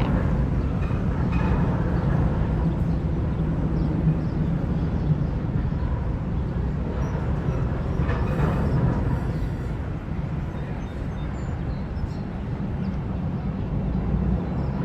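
Steam-hauled excursion train running along the track with a steady low rumble.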